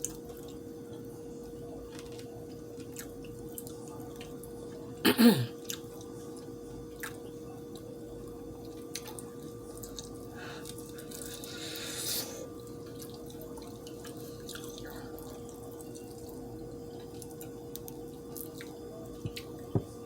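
Person chewing a bite of hot and spicy chicken wing, with scattered wet mouth clicks and smacks over a steady electrical hum. About five seconds in comes one brief, loud mouth or voice sound that falls in pitch, and around eleven seconds there is a soft breathy rush.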